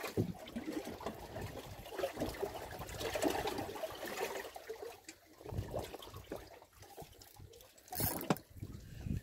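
Irregular water splashing and sloshing, with a sharp knock near the end.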